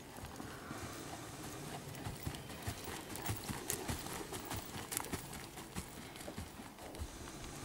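Horse cantering on an arena surface, hoofbeats growing louder as it passes close by about halfway through, then fading as it moves away.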